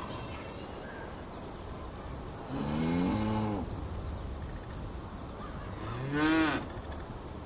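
Cows mooing twice: a call of about a second starting about two and a half seconds in, and a shorter call that rises in pitch about six seconds in, over a steady low background noise.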